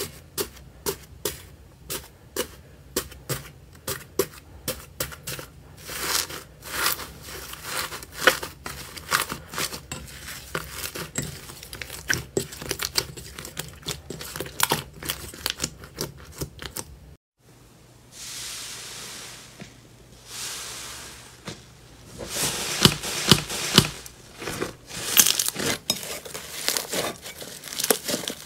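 Hands pressing and kneading slime, first a foam-bead slime and then smoother slimes: dense crackling clicks and squelching pops. The sound drops out briefly about two-thirds of the way through, then a soft hiss and more loud popping squishes follow.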